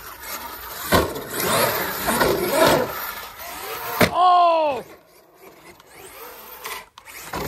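Arrma Kraton 8S RC monster truck driving over a concrete skate park: tyres rolling and scraping, with a sharp knock about a second in. About four seconds in, the brushless motor gives a short whine that rises and falls as the throttle is blipped.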